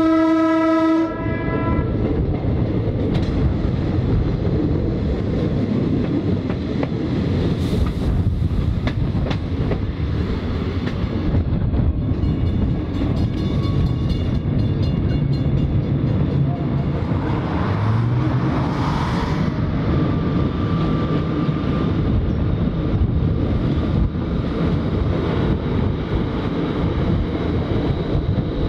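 Short single horn blast from a 1920s CPH 'Tin Hare' diesel railmotor, cutting off about a second in. Then the railcar runs steadily along the line, its engine and wheels on the rails heard through an open side window.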